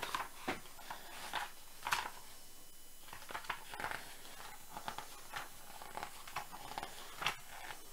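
Pages of a leatherbound book being turned by hand: a string of short, soft paper swishes and rustles coming irregularly, about one every second or less.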